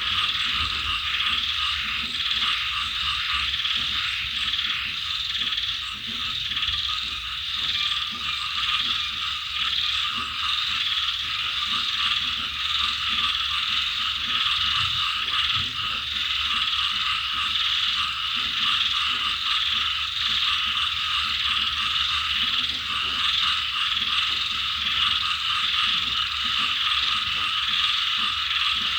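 Dense, steady night chorus of frogs croaking together with insects calling, a continuous fast rattling trill.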